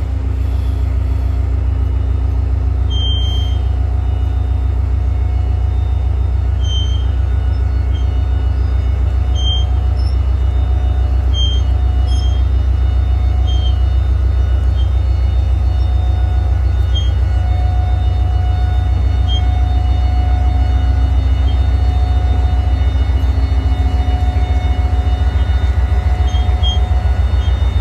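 Train running: a steady, loud low rumble with a faint steady hum above it and scattered short high chirps.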